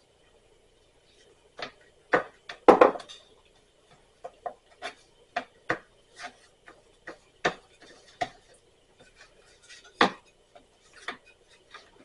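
Irregular clacks and knocks of kitchen utensils on wood and a cast iron pan while tortillas are rolled and cooked, the loudest strikes about two to three seconds in and near the end, over a faint steady hum.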